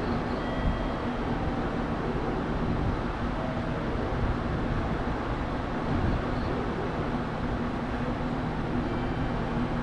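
Steady background rumble of a railway station platform, with a low hum running under it and no train passing on the near tracks.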